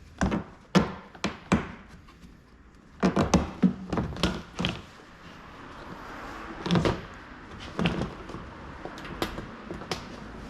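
Irregular knocks and clatter of hard objects, about a dozen sharp impacts in clusters. The loudest come between about three and five seconds in and again around seven seconds.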